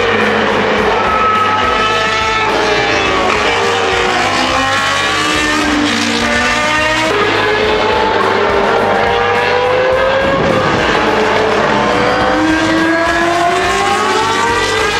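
High-revving racing engines of historic Formula 1 cars passing on track, their pitch climbing and falling through gear changes and as each car goes by, with abrupt changes where one pass gives way to another.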